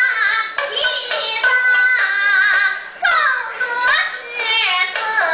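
A woman singing a Chinese folk song in a high voice, holding long wavering notes, accompanied by a Chinese string instrument, with sharp taps from her small drum and clappers.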